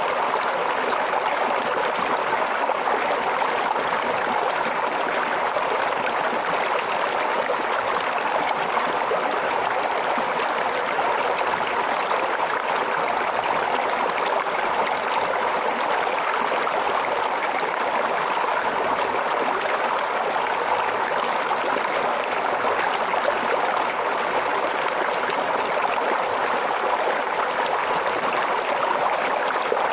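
Stream of water babbling steadily, an even splashing rush with no change in level.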